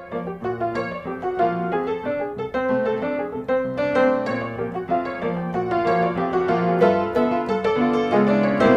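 Background piano music: a light melody of separate notes.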